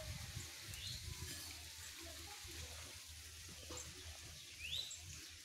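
Quiet rural outdoor ambience: a low rumble of wind and handling on the microphone, with a couple of faint, short rising bird chirps.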